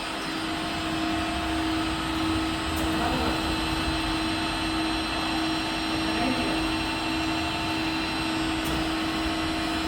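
Amen universal milling machine running: a steady machine hum with one constant tone held throughout.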